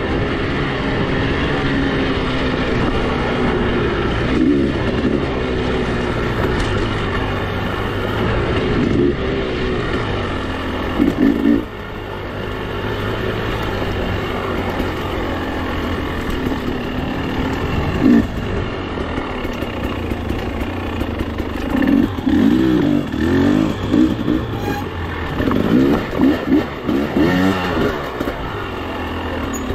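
Off-road motorcycle engine running under way, its revs rising and falling with the throttle and swinging up and down repeatedly in the last third. There is a sudden drop in revs about twelve seconds in.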